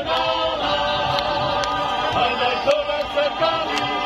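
Masamper group of men singing a cappella in several-part harmony, holding long chords as the leader directs.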